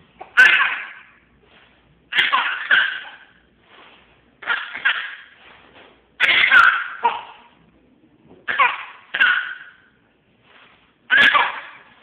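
A young child laughing in short, sudden bursts, about six of them, roughly two seconds apart with quiet between.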